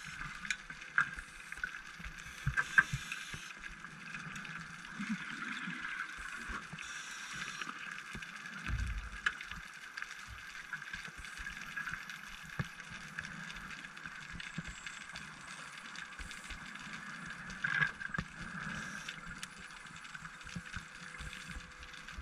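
Underwater ambience picked up through a dive camera's housing: a steady hiss with scattered small clicks, and one brief low bubbling rush about nine seconds in.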